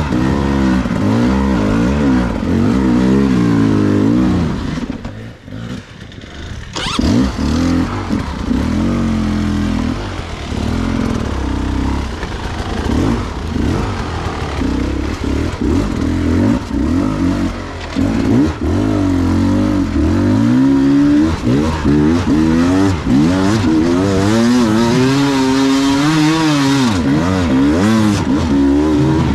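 Beta 300 two-stroke enduro motorcycle engine being ridden hard, its revs rising and falling constantly with the throttle. About five seconds in it drops off briefly, then picks up again with a sharp crack.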